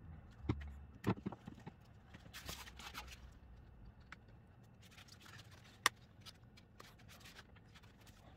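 Hard plastic dashboard trim being handled: an air-vent assembly and a head-unit facia knock and click against each other, with some scraping. There are a few sharp clicks, the sharpest near the end, with rustling scrapes in between.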